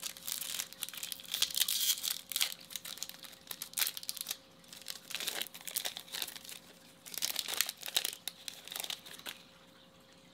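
Foil wrapper of a Topps Chrome baseball card pack crinkling and tearing as it is ripped open and peeled off the cards, in irregular bursts that stop about nine seconds in.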